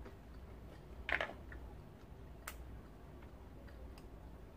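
Boiled peanut shells being cracked open by hand: a few faint clicks and crackles, the loudest a short crackle about a second in and a sharp click midway.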